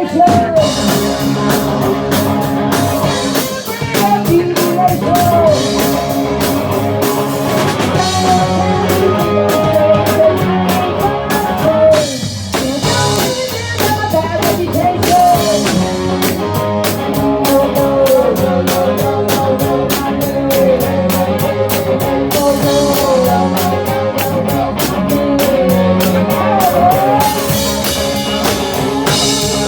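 Live rock band playing: drum kit, guitar and a singing voice, with a short break in the music about twelve seconds in.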